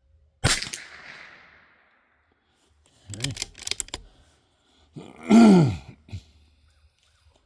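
A Bergara B14R .22 LR bolt-action rifle fires one shot about half a second in, with a short fading echo. About three seconds in come a few sharp clicks as the bolt is cycled, and near the end a loud drawn-out vocal sound falling in pitch.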